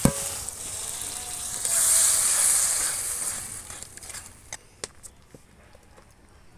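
Masala paste sizzling in hot mustard oil in a kadai as a splash of water goes in and is stirred with a spatula. A sharp knock comes right at the start, then the sizzle swells and dies away about four seconds in, leaving a few light taps of the spatula.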